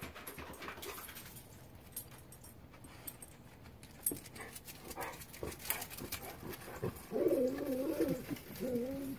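A dog whining at the deer beyond the fence: a wavering whimper that starts about seven seconds in and rises and falls in pitch until the end, after a stretch of faint scattered clicks.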